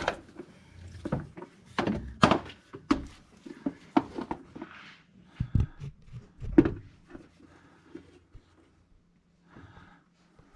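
Irregular metal knocks and clunks of hands and tools working on a truck's starter up in a cramped spot under the engine, the loudest about two seconds in and again a few seconds later, thinning out near the end.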